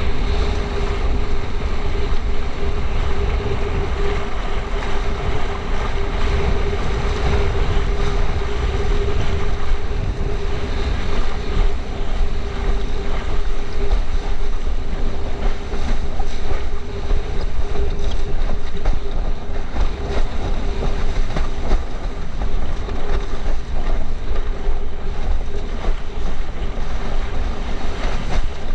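Wind buffeting the microphone and water rushing and slapping under a windsurf board sailing over choppy sea, with a steady hum throughout.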